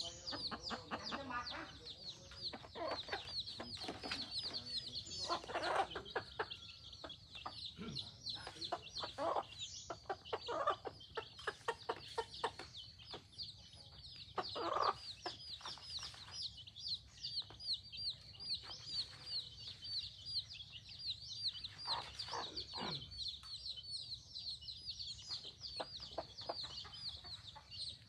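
A flock of free-range chickens clucking, over a steady run of rapid high peeping, several peeps a second throughout.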